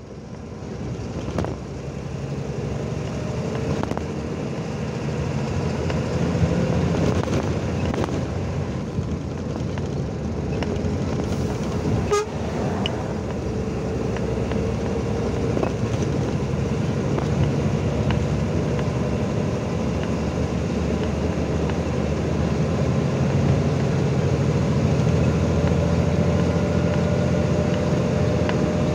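Semi-trailer truck driving, its engine and tyre noise heard from the cab. The sound grows steadily louder and the engine note rises near the end as the truck gathers speed. A single sharp click comes about twelve seconds in.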